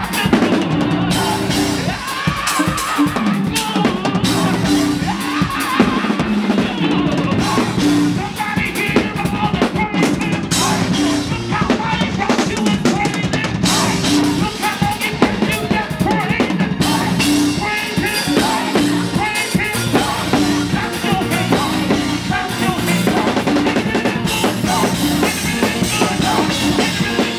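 Drum kit driving a fast church shout-music groove: dense snare and bass-drum hits with cymbals, over the band's sustained chords.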